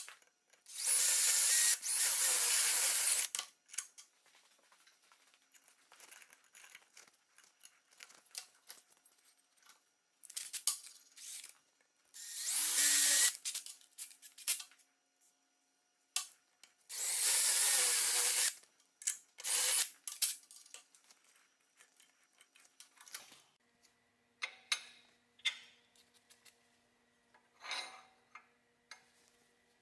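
An aerosol spray can hissing in three bursts of one to three seconds, with clicks and rattles of small metal parts being handled between them.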